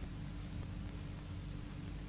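Steady hiss with a low hum and a faint constant tone underneath: the background noise of an old film soundtrack. No thud from the throw stands out.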